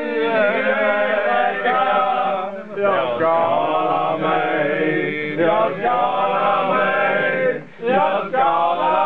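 Men singing loudly together in long, drawn-out chanted notes, with two short breaks between phrases.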